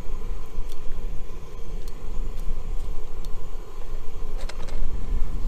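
Wind buffeting the microphone in a steady low rumble, with a few light metallic clicks of tongs against a frying pan as sausages are turned on a camping stove.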